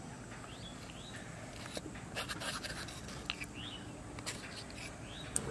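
Metal spoon scraping and clicking against a terracotta bowl while scooping up soft dudh puli in milk, a few light scrapes and taps.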